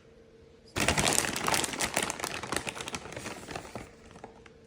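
A plastic bag of shredded mozzarella cheese crinkling and rustling as it is handled, starting abruptly about a second in and dying away about three seconds later.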